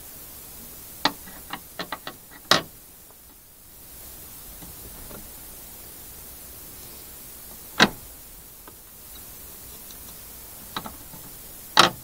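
Metal window latch clacking and rattling as a cat paws at it: a quick run of clicks about a second in, a single sharp clack in the middle, and two more near the end.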